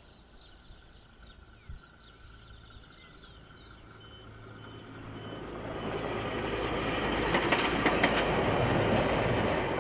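KiwiRail diesel locomotive passing on the railway line. Its rumble builds from about four seconds in and is loudest near the end, with a few sharp clicks from the wheels on the track as it goes by.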